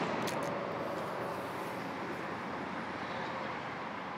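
Steady outdoor background noise, a hiss-like haze that slowly fades.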